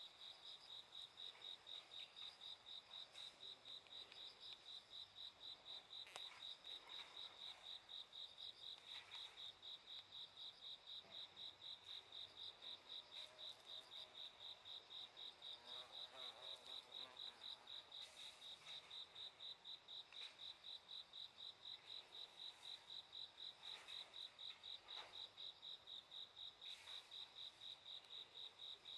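A cricket chirping steadily in a high-pitched, even rhythm of about three pulses a second, with fainter insects behind it.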